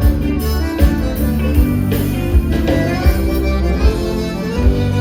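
Live gaúcho dance band playing an instrumental passage, led by accordion (gaita) over bass and guitar, with a strong low beat a little faster than once a second.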